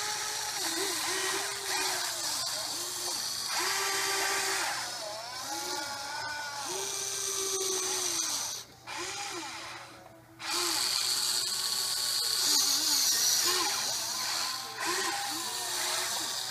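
Small electric motors and gearboxes of a Huina 580 RC excavator whining as it digs, the pitch rising and falling in short runs as the boom, arm and bucket move. It briefly drops away about nine and ten seconds in.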